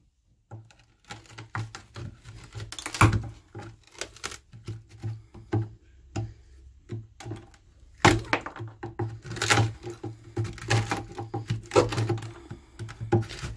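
A metal tool digging and prying into the rotten wood of a boat's timber engine bed: irregular knocks, cracks and scrapes as rotted wood breaks away, with the loudest strikes about three and eight seconds in.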